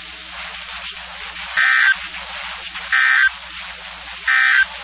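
Three short bursts of EAS digital data tones, the end-of-message code sent over NOAA Weather Radio that marks the close of the alert. Each burst lasts about a third of a second, and they come about 1.3 s apart, the first about a second and a half in. Between the bursts there is a steady radio hiss and a low hum.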